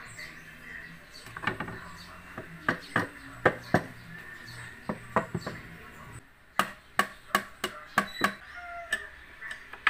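Claw hammer striking a wooden shelf board to tap it into place in the rack frame: a dozen or more sharp knocks in irregular runs, the quickest run about two-thirds of the way in.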